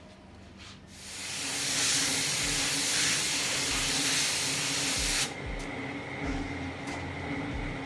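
Gravity-feed compressed-air spray gun spraying thinned green acrylic paint: a steady loud hiss of air starts about a second in and cuts off suddenly about five seconds in. A quieter steady hum continues underneath.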